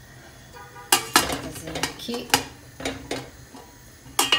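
Stainless steel steamer pan and lid clanking against each other as the lid is handled and set on the stacked tiers. It is a series of sharp metallic knocks with short ringing, starting about a second in and coming again near the end.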